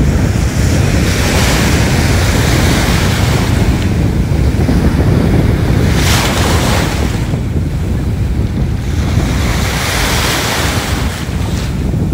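Sea surf washing onto the beach, the hiss of the wash swelling every few seconds, with wind buffeting the microphone in a steady low rumble.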